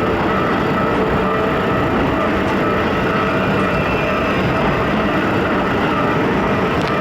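A twelve-car Keikyu New 1000-series electric train running past over a level crossing: a loud, steady train noise with no let-up.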